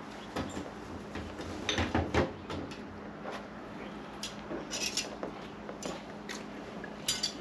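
Metal hand tools clinking and tapping in scattered light clicks, with a cluster of heavier knocks about two seconds in and sharper clinks near the end, over a steady low hum.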